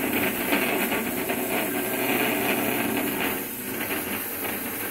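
Two HEXBUG Transformers Warriors battling robots buzzing and rattling steadily on a plastic arena as their vibration motors drive them about, clattering against each other as they fight.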